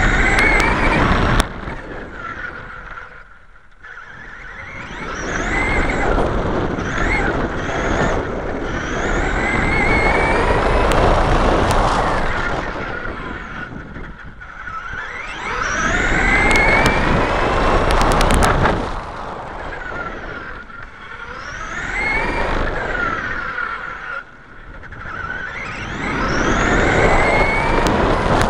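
Traxxas E-Revo Brushless RC monster truck driving, heard from on board: the brushless electric motor's whine rises and falls in pitch through several bursts of acceleration and slowing, over a rushing noise from the drivetrain and tyres.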